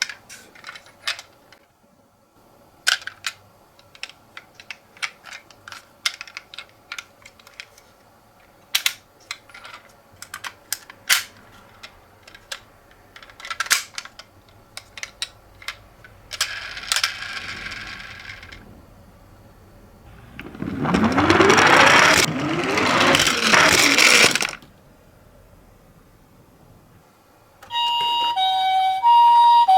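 Scattered sharp clicks and taps of a plastic toy being handled. Then a loud rushing scrape lasts about four seconds. Near the end a toy ambulance's electronic two-tone siren switches on, alternating between two pitches.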